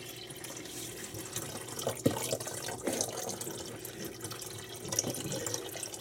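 Water pouring into the reservoir of a Mr. Coffee iced tea maker, a steady splashing pour, with a couple of light knocks about two and three seconds in.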